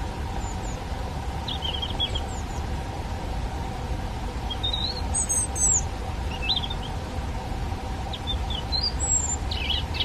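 European robin singing: short, thin, high warbling phrases with pauses between them, over a steady low background hum.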